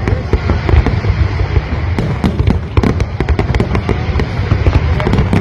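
Fireworks display going off in a dense barrage: many rapid, overlapping bangs and crackles over a continuous low rumble of booms.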